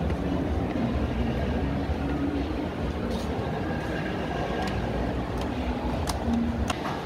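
Indoor shopping-mall background noise: a steady low rumble, with a few short taps of footsteps on the stairs in the second half.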